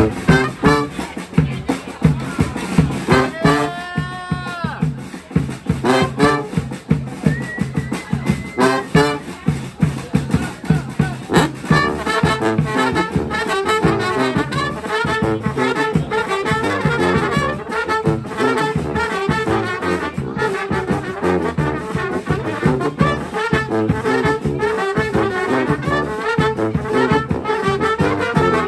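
A street brass band playing over a steady, busy drum beat. Brass notes slide and bend early on, and the full band comes in with sustained chords from about twelve seconds in.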